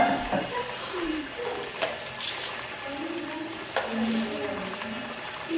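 Plov zirvak (carrots, onions and meat in broth) bubbling steadily in a large aluminium pot, with a couple of faint clicks.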